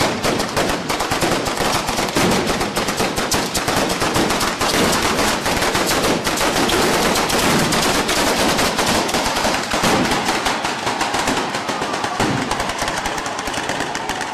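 Firecrackers going off on the ground in a dense, continuous barrage of sharp bangs, many each second, easing slightly near the end.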